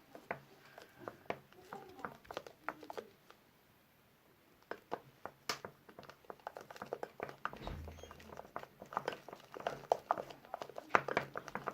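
Runny slime mixture being stirred after borax water is added: faint quick sticky clicks and small squelches, sparse at first, then dense and steady through the second half.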